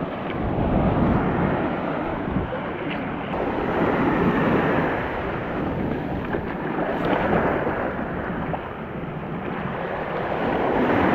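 Small ocean waves breaking and washing up the sand, swelling and easing every few seconds, with wind buffeting the microphone.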